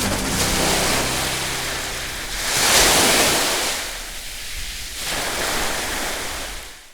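Rough surf breaking on a beach, with a big wave surging and washing up about two and a half seconds in and another about five seconds in.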